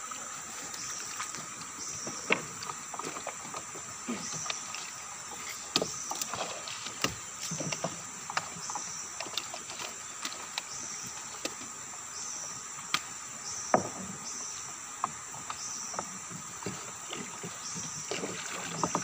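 Gill net being hauled into a wooden dugout boat: scattered knocks on the wooden hull and splashes of water as the net, fish and paddle are handled. Behind it runs a steady high insect drone, with a short chirp repeating about once a second.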